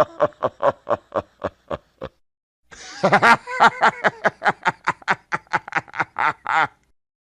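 Evil, diabolical laughter sound effect: a run of rapid 'ha-ha' pulses that dies away about two seconds in, then after a short pause a second cackling run of about five laughs a second that stops abruptly near the end.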